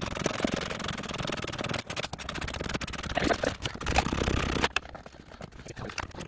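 Hand ratchet with a 10 mm socket clicking in short strokes as it backs out a top mounting bolt of a passenger airbag module, with scraping of metal and fabric. The clicking eases about three-quarters of the way through.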